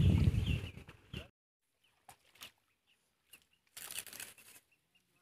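Wind buffeting the microphone as a loud low rumble that stops about a second in, with faint bird chirps over it. Then it is almost quiet, with a short rustle about four seconds in.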